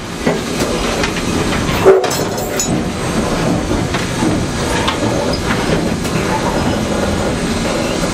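Canadian Pacific 2317, a 1923 Montreal Locomotive Works steam locomotive, making a steady, loud rumble and rail clatter, with one sharp clank about two seconds in.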